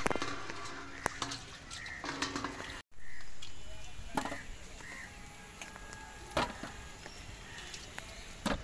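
Food-prep handling sounds: a steel tray set down, then a wooden board, shallots and peeled cucumbers placed on it, giving scattered knocks and clinks. The sound cuts out for a moment about three seconds in.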